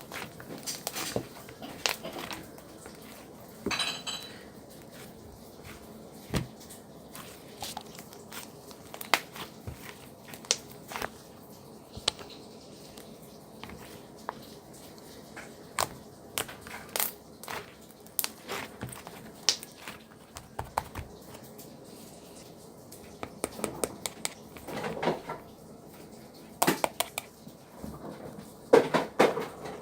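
Irregular clicks, clinks and knocks of hard objects being handled, with a denser, louder cluster near the end.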